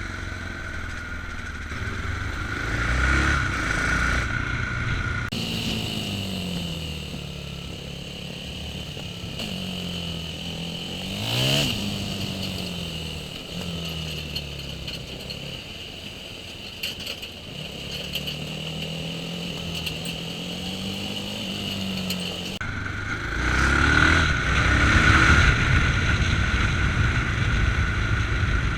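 Yamaha MT-03 motorcycle engine on the move, its pitch rising and falling with the throttle, with a quick sharp rev near the middle. Wind on the chest-mounted microphone grows louder near the end.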